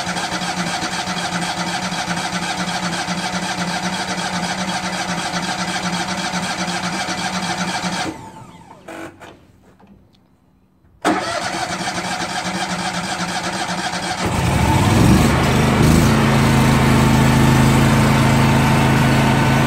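Miller Trailblazer 325 welder-generator's carbureted gasoline engine cranking on its electric starter: a long crank of about eight seconds, a pause of about three seconds, then a second crank that catches about fourteen seconds in and settles into louder steady running. It is slow to start because the empty fuel filter has to fill first.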